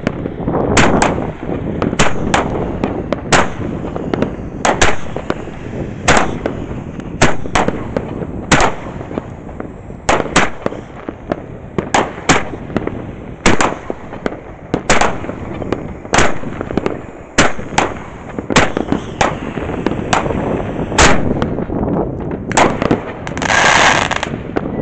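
Royal Party Battery Power Station, a 20-shot 18 mm consumer fireworks cake, firing: sharp bangs about one a second, some in quick pairs. Near the end comes about a second of dense, continuous rushing noise.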